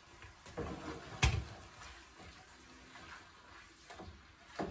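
Spatula knocking and scraping against a frying pan while a block of raw ground beef is broken up. There is one sharp knock about a second in and a few lighter taps near the end.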